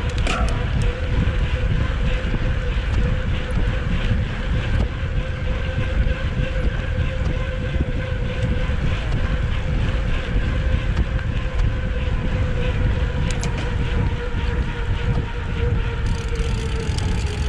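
Wind rushing over the camera microphone at speed, with knobby mountain-bike tyres rolling fast on asphalt and giving a steady hum.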